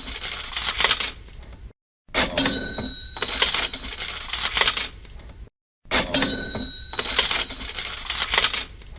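Cash register sound effect on a loop: a bell ding followed by a jangle of coins that fades out, repeating about every three and a half seconds with a brief silent gap between repeats.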